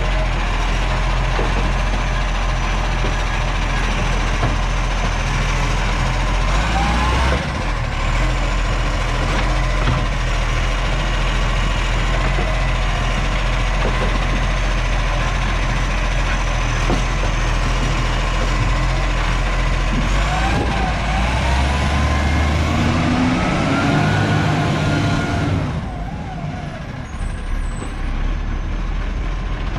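Garbage truck running, its engine a steady low drone, with whining tones that rise and fall about two-thirds of the way through. The engine sound drops away a few seconds before the end.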